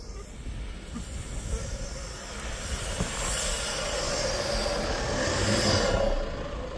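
Off-road 4x4 engine revving hard under load, the noise building steadily over several seconds and easing near the end, as a high-centred vehicle tries to drive free.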